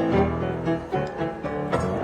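Background music: stringed instruments playing a melody of short, changing notes.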